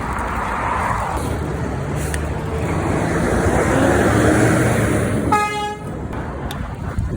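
A truck passes with its engine running, its engine note rising as it goes by, then gives one short, high horn toot of about half a second near the end.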